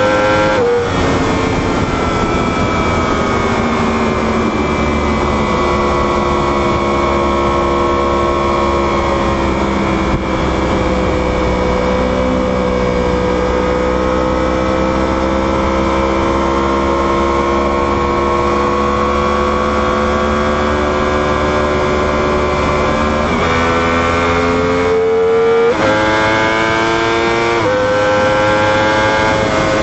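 Superbike's inline-four engine running hard at high revs, its pitch sagging and climbing slowly, with upshifts that drop the pitch sharply about a second in and a few more near the end. A steady wind rush runs underneath.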